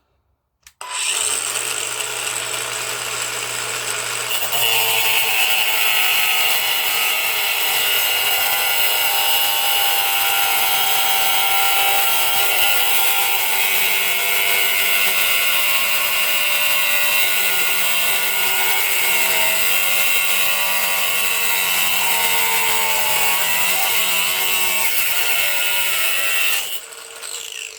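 Macallister 18V cordless angle grinder with a 115 mm cutting disc starting up and running free for a few seconds. It then cuts into a 15 mm steel nut for about twenty seconds, a loud, steady grinding of disc on metal. It is switched off near the end.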